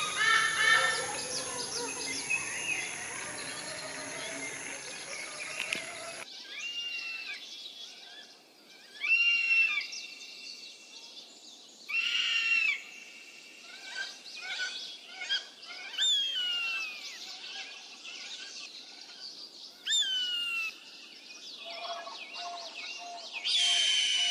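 Bald eagle calling: short series of high, thin whistled notes that rise and then fall, repeated every few seconds. During the first six seconds there is a denser, rapid chatter of calls, which cuts off abruptly.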